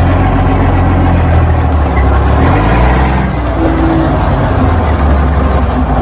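Large diesel engine of a heavy-duty wrecker tow truck running hard, its pitch shifting about halfway through.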